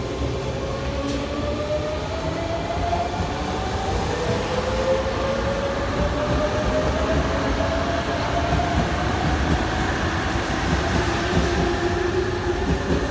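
Tobu 100 series Spacia limited express pulling away from the platform and gathering speed: a whine from its electric drive climbs steadily in pitch over the rumble of the cars rolling past.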